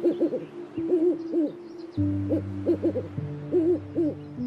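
Owl hooting: a run of short, quick hoots, several a second, over steady sustained background tones.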